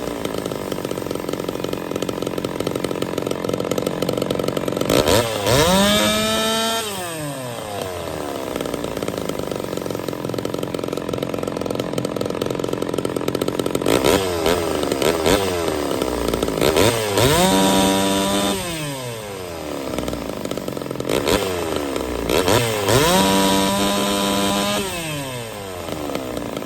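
Ported Homelite Super XL-130 two-stroke chainsaw running, revved up three times: the pitch climbs, holds briefly at full throttle, then falls back to idle. This is a test run after its ignition timing was advanced; the owner says the saw now four-strokes with the high-speed needle about two turns out.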